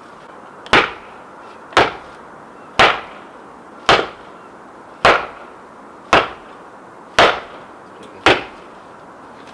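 Hammer blows on wood: eight even strikes about a second apart, each with a short ring-out, as a wedge is driven in to hold the upright pole.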